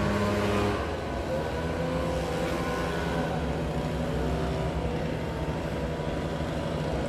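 Leaf blowers running steadily, their engine drone mixed with rushing air, the pitch shifting a little under a second in.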